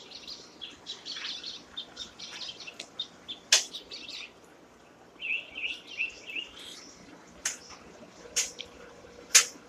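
Small birds chirping in short runs, with a few sharp clicks, the loudest about three and a half seconds in.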